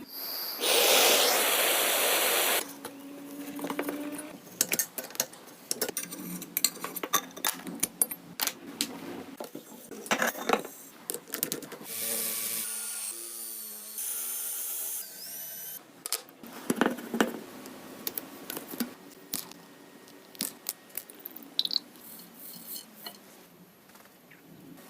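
Tools working on a bike: scattered metallic clicks, knocks and scrapes. A loud rushing noise lasts about two seconds near the start, and short squeaks come in the middle.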